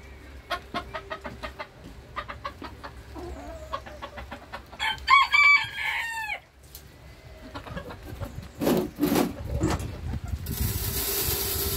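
Booted bantam chickens in their run: quick clucking for the first few seconds, then the rooster gives a short crow of several notes about five seconds in. Near the end comes a loud rushing hiss as handfuls of grain are scattered onto the straw.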